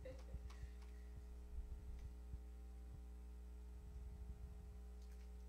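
Steady low electrical hum, with faint short low knocks scattered through it.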